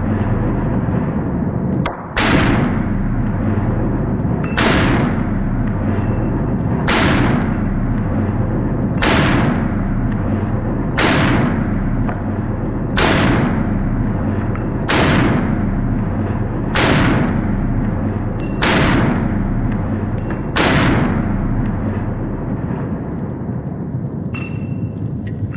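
Outro music: a heavy, booming hit about every two seconds over a low sustained drone, the hits stopping near the end as it fades.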